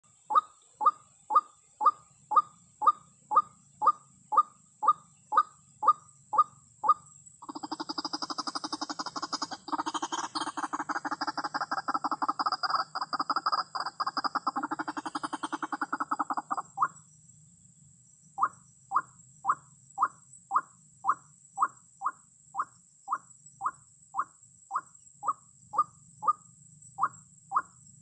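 White-breasted waterhen calling: sharp repeated calls at about two a second, breaking about a quarter of the way in into a dense, rapid chattering run that lasts about nine seconds, then the steady repeated calls start again after a short pause.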